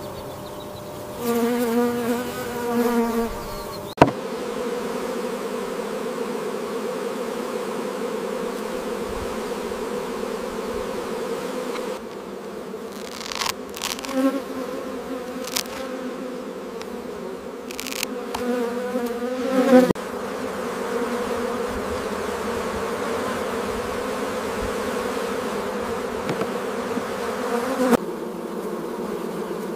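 Honeybees buzzing: a steady hum of many bees. Now and then a single bee buzzes close and louder, its pitch wavering, three times in all.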